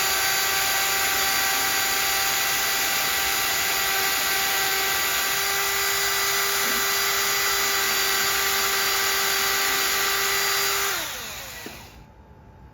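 Electric drill boring through wood at a steady speed under light pressure, a constant whine with a hiss. About eleven seconds in it is released and winds down, its pitch falling until it stops.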